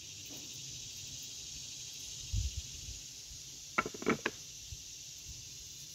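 Small wooden box parts being handled and fitted together: a dull thump about two seconds in, then three quick sharp wooden clicks a little later. A steady insect chorus runs underneath.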